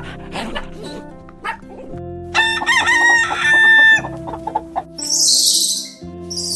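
A rooster crows once, a long pitched call with a wavering, falling end, over background music. Two short hissing bursts follow near the end.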